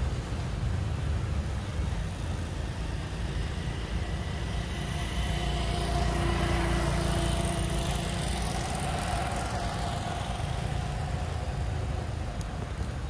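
Steady low rumble with a faint engine drone that swells in the middle and fades away again.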